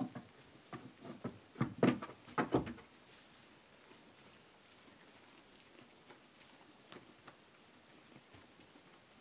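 Jacob sheep ewe foraging in straw bedding: a run of irregular crunches and rustles in the first three seconds, then only faint scattered rustles.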